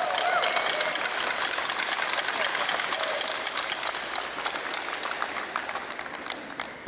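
Applause and hand clapping from a crowd, dying down toward the end.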